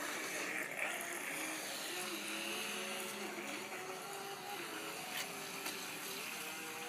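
Small electric motor of a radio-controlled toy warship boat whining as it runs across the water, its pitch wavering up and down over a steady hiss.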